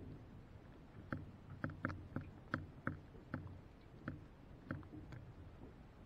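Faint tapping inside a dishwasher: about ten irregular sharp ticks of water drops falling onto the dishes and the camera housing, over a low steady hum from the machine.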